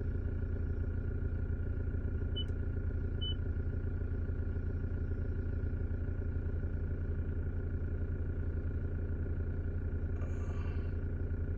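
2018 Toyota Hilux engine idling steadily, heard from inside the cab. Two short high beeps come about two and a half and three and a half seconds in.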